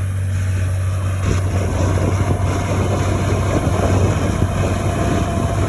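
Massey Ferguson 2620 tractor engine running steadily under the load of deep ploughing, with a strong low hum. About a second in, a rougher, louder noise joins it and carries on.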